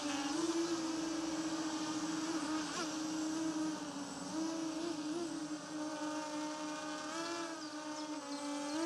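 Lumenier QAV-R racing quadcopter's brushless motors spinning DAL 5045 bullnose propellers at low throttle: a steady buzzing hum with small wobbles in pitch as it hovers low and creeps forward.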